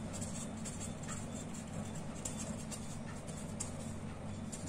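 A pen scratching on paper as words are written by hand, faint, over a low steady hum.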